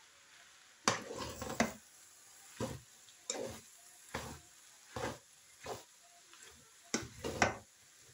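Spatula scraping and tossing noodles in a frying pan during a stir-fry, in short strokes about once a second. A faint sizzle of frying runs between the strokes.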